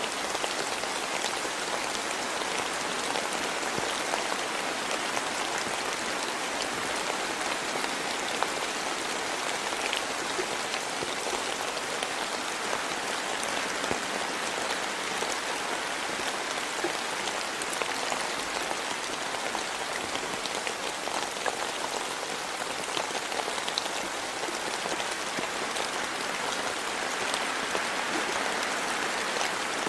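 Steady rain falling in a forest, an even hiss of rain with many separate drops ticking throughout.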